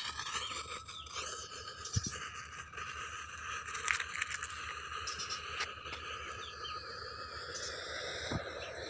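Outdoor background of steady high chirring and chirps, with a few sharp clicks and knocks about two and four seconds in.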